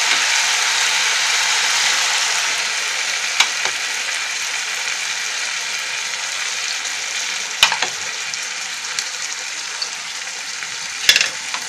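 Bean seeds and potatoes sizzling in spiced oil in a karahi, a steady sizzle that slowly softens. There are a few sharp clicks along the way, and a little cluster of them near the end.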